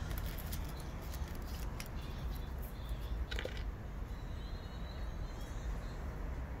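Outdoor background: a steady low rumble with a few small clicks, and faint bird chirping about four to five seconds in.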